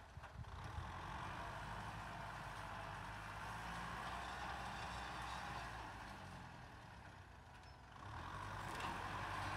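Kubota M6040SU tractor's diesel engine running steadily under load while plowing. The sound sags slightly about seven seconds in, then picks up again near the end.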